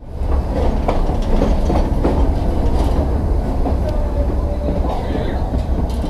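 Nilgiri Mountain Railway train running on the track: a steady low rumble with scattered clicks and clatter from the wheels, and a brief faint whine about four seconds in.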